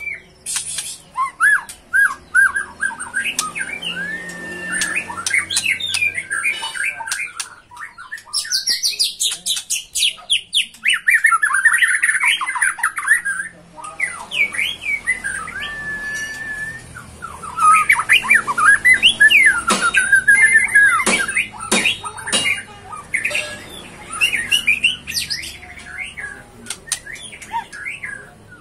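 Bird singing a long, varied song of whistled notes, fast rising and falling trills and harsh squawky notes, broken by short pauses.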